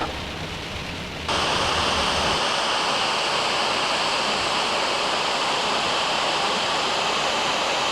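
Flash-flood mud waterfall pouring down the canyon cliff, a loud, steady rush of water that cuts in suddenly about a second in, replacing a quieter low rumble.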